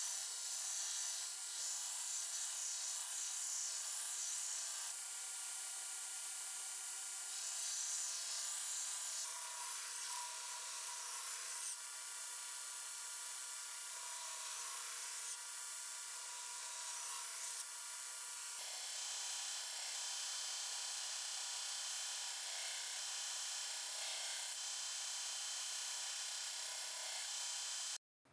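Belt grinder running with a steel knife blade held against the belt to grind the bevel: a steady abrasive hiss with a high whine, shifting abruptly a few times and cutting off suddenly near the end.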